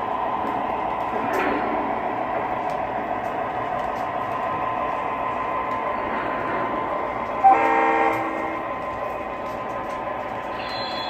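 O scale model freight cars rolling steadily along the track with a constant hum and rumble. About seven and a half seconds in comes a short blast of about half a second from a model locomotive's sound system.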